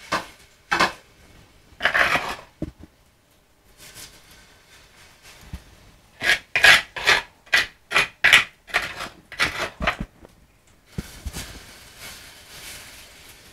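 A metal spoon scraping as it scoops and spreads plantain batter for tatale in a nonstick frying pan. There are a few single scrapes at first, then a run of about a dozen quick strokes, around three a second, in the middle.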